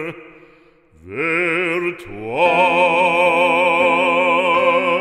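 Operatic solo singing of a French sacred song with wide vibrato. A note fades out, and after about a second of quiet the voice slides upward into a long held final note.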